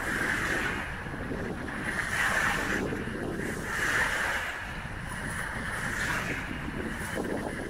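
Small wind-driven waves washing onto the shore, swelling and fading about every two seconds, over a steady rumble of wind on the microphone.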